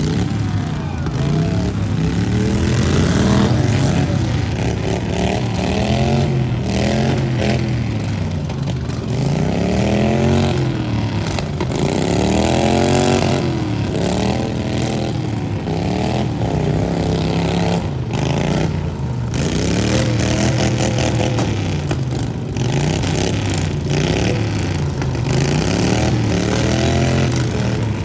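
Several riding lawn mower engines running at once in a lawn mower derby, each revving up and dropping back again and again, their pitches rising and falling over one another.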